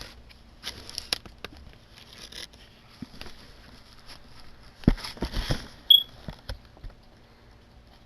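DVD box-set packaging being handled: scattered rustles and clicks, a cluster of knocks about five seconds in, and a brief high squeak just after.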